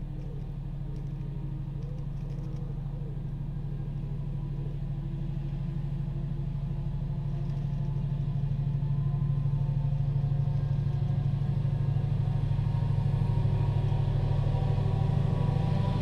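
Class 70 diesel-electric freight locomotive's V16 engine running with a steady low drone that grows steadily louder as the locomotive approaches.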